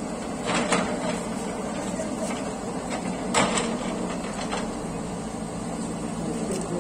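Backhoe loader's diesel engine running steadily, with a few sharp knocks from its work, the loudest about three and a half seconds in.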